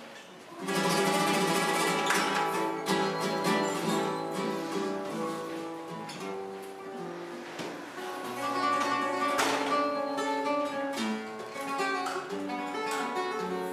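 Flamenco guitar music: the guitar comes in with a loud strummed chord about half a second in, then carries on with plucked notes and chords.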